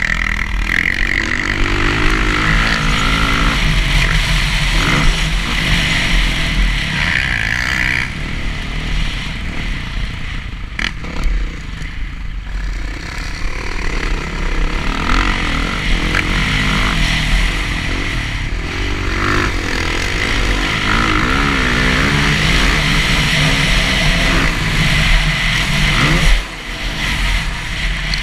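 Dirt bike engine heard from the bike itself, revving up and falling back again and again as the rider accelerates and brakes around a motocross track, over a steady low rumble of wind on the microphone. The throttle is cut sharply about two seconds before the end.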